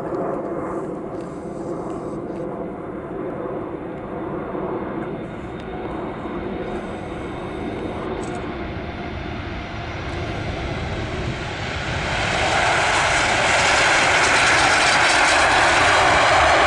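Boeing 747-8F freighter's four GEnx turbofans running as the jet comes in to land and rolls onto the runway: a steady jet drone with a few held tones. About twelve seconds in it grows much louder and turns into a wide, hissing rush.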